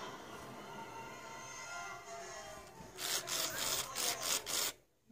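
Original-model Furby speaking faintly in its warbling electronic voice, then its motor and gears grinding in several rough bursts as it moves.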